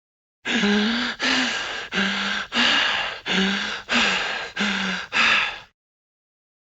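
Sound effect of eight breathy, wheezing huffs in an even rhythm, about one and a half per second, each with a faint voiced note under the hiss.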